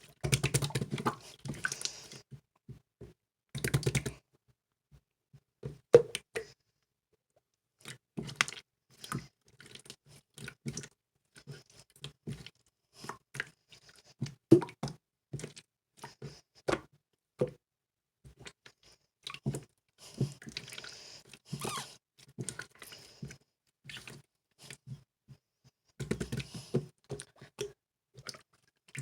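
Yellow jiggly slime being squeezed and pressed by hand, giving irregular clicks and crackles with short pauses between handfuls.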